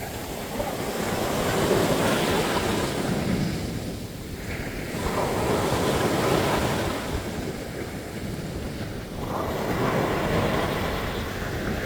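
Sea waves breaking on the beach, the surf swelling and washing back about every four seconds, three times.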